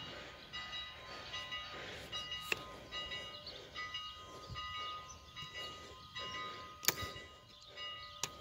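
Steam locomotive's bell ringing, about two strokes a second, with three sharp clanks, the loudest about seven seconds in.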